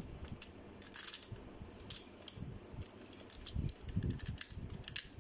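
Plastic parts of a G1 Sixshot Transformers figure clicking and knocking as they are swung and snapped into place by hand during transformation. Scattered light clicks, busiest about three and a half to four and a half seconds in.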